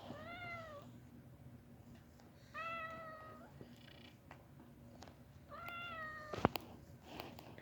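A kitten meowing three times, each meow a short arching call, about two and a half seconds apart. Just after the third meow comes a sharp knock, the loudest sound, followed by a few lighter clicks.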